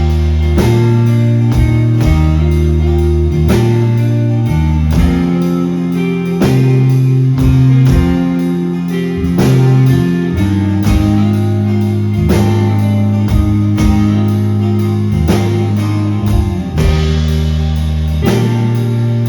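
Live rock band playing an instrumental passage with no vocals: guitar over bass and steady drums.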